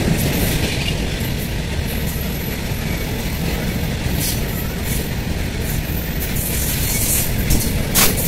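Long goods train of covered freight wagons rolling past at trackside: a steady rumble and clatter of wagon wheels on the rails, with a brief sharp noise near the end.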